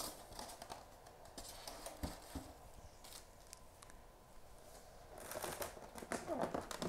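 Polystyrene foam packing and a cardboard box being handled: the foam top layer is lifted out and set down with two soft knocks about two seconds in, then, after a quieter moment, foam and cardboard scraping and rustling as hands reach into the box.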